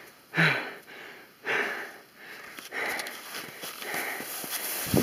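Skis scraping across hard snow in quick linked turns: a swish about once a second, the first two loudest, then softer ones.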